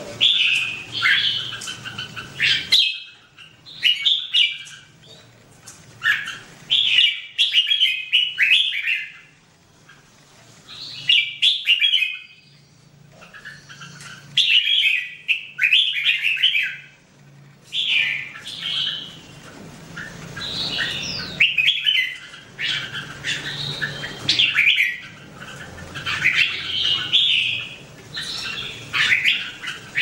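Red-whiskered bulbuls singing: one short, bright phrase of a few quick notes after another, with brief pauses between.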